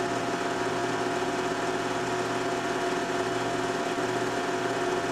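Steady mechanical whir of a home-movie film projector running, an even hum with a faint constant tone, unchanging throughout.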